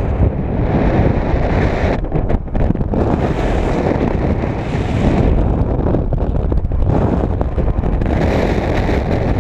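Wind buffeting the microphone of a paraglider's harness-mounted action camera in flight: a loud, continuous rushing that surges and eases, with a brief lull about two seconds in.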